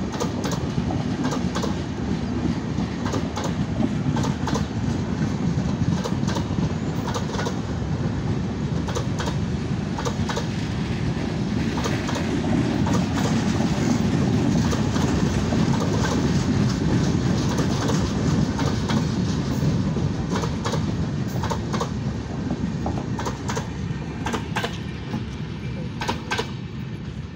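Indian Railways LHB passenger coaches rolling past at speed: a steady rumble of wheels on rail, broken by repeated clicks as the wheelsets cross rail joints. It begins to fade near the end as the last coach goes by.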